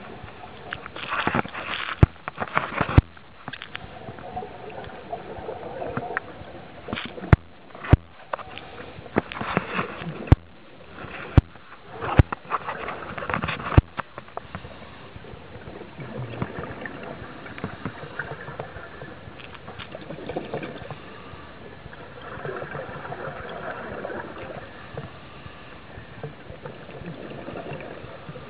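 Underwater scuba-diving sounds: a diver's regulator breathing, with bursts of exhaled bubbles gurgling, broken by several sharp clicks in the first half. In the second half the sound settles into a steadier hiss and bubbling.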